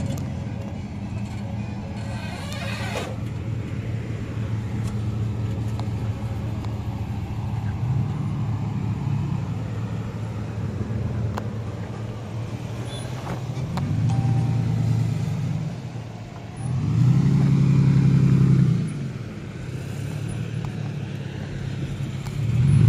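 Cars and pickup trucks rolling past slowly one after another, their engines running at low speed in a steady low hum. Two vehicles pass louder in the second half, the later one the loudest, swelling and fading over about two seconds.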